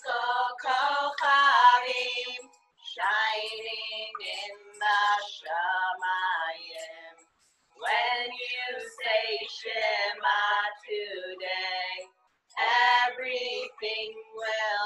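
A woman singing a children's song in phrases with short pauses between them.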